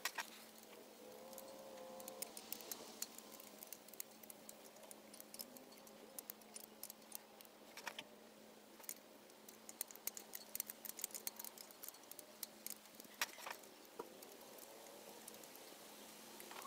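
Quiet, irregular metallic clicks and clinks of a wrench working the carburetor's mounting nuts, coming in clusters of light taps, over a faint steady hum.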